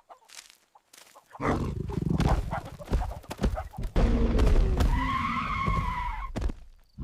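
Giant cartoon gorilla roaring and grunting over a heavy low rumble, with one long held cry in the middle.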